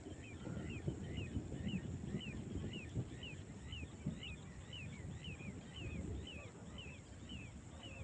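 An animal calling with an even run of short high chirps, about two a second, over a low rumbling noise.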